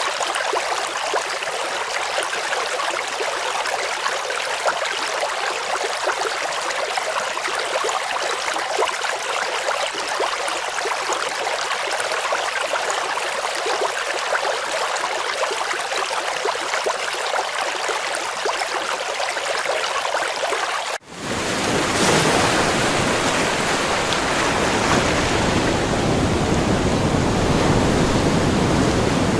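Running water splashing steadily, mostly a light, bright trickle-and-splash. About two-thirds of the way through it cuts off abruptly and is replaced by a louder, deeper, fuller rush of water.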